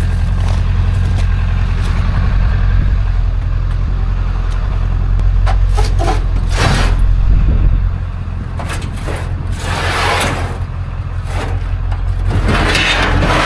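Vehicle engine rumble, which eases off about eight seconds in. Several short scraping, rustling noises come over it.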